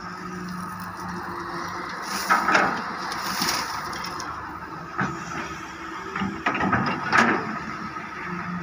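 Wheeled excavator's diesel engine running steadily under hydraulic load. About two seconds in, a bucketload of gravel pours into the dump truck's steel bed in a loud rattling rush, and later the bucket teeth strike and dig into the gravel pile with sharp scraping crunches, the loudest near the end.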